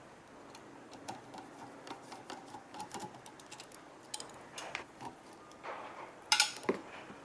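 Scattered light clicks and metallic taps of tools and small metal parts being handled, with one sharper metal clink about six seconds in.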